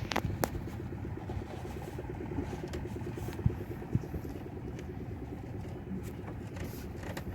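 A fishing boat's engine running steadily with a fast, even beat, and a few sharp clicks or knocks, the loudest about halfway through.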